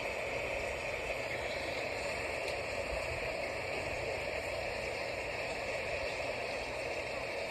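Steady light rain falling, an even, unbroken hiss of drops.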